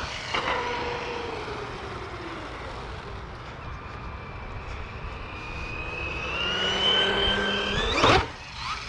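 Losi Lasernut RC buggy's electric motor and drivetrain whining as it is driven. The pitch falls as it slows, then climbs steadily under throttle. About eight seconds in there is a brief loud burst, the loudest moment.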